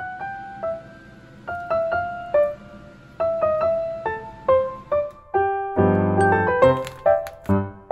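Background music: a light piano melody of single notes, joined about six seconds in by a fuller, bouncy accompaniment with low bass notes.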